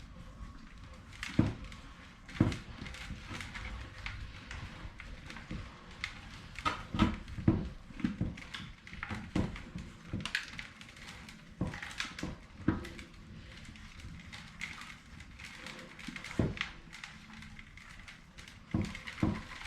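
Irregular knocks, clicks and rustles of hands working soil off a tomato seedling's roots and handling a bucket, with a few louder knocks scattered through.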